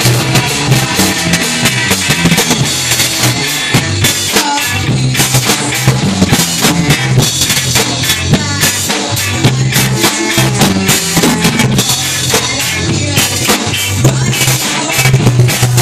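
Ska band playing live and loud, with a drum kit keeping a steady beat under bass, electric guitar and trombone.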